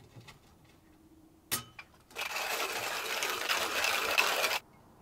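A click, then water running for about two and a half seconds before it cuts off suddenly.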